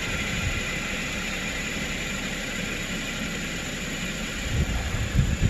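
2010 Toyota Corolla S's 1.8-litre four-cylinder engine idling steadily, with a few low thumps near the end.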